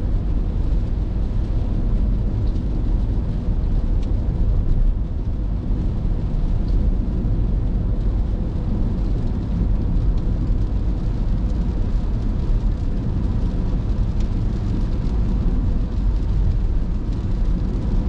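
Steady low rumble of a car driving on a wet road, heard from inside the cabin: tyres on wet asphalt and the engine running at cruising speed, with no change in level.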